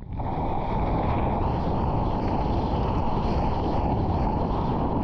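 Ocean whitewater and wind rushing over a board-level action camera while surfing, a steady, muffled roar with a brief dip in level right at the start.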